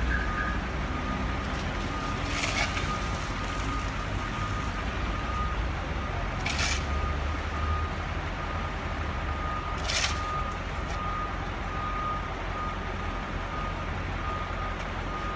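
A heavy construction machine's diesel engine running under a reversing alarm that beeps steadily at one high pitch. Several short hisses break through, about four seconds apart.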